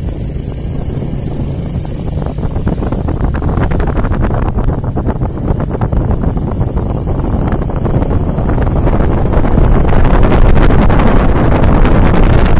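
Storm wind buffeting the phone's microphone, a loud, dense rushing that grows louder in the last few seconds.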